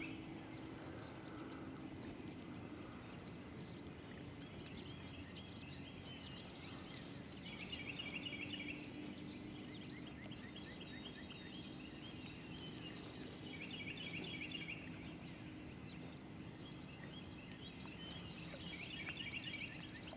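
Faint outdoor ambience: a bird singing short trilled phrases every few seconds, over a faint steady low hum.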